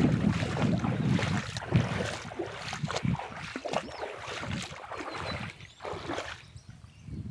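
River water splashing and sloshing in irregular swishes, with wind buffeting the microphone; the splashing fades toward the end.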